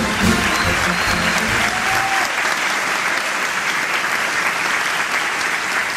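Audience applauding steadily, with the end of a brass-band tune dying away in the first two seconds.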